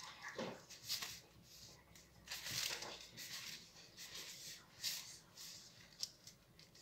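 Plastic cling film rustling and crinkling faintly in short, irregular rustles as a film-wrapped log of bread and filling is rolled and handled on a board.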